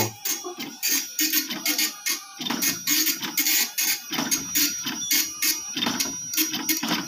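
Epson PLQ-22CS passbook printer printing on a passbook. Its 24-pin dot-matrix head buzzes in rapid repeated bursts, several a second, as it prints the first page.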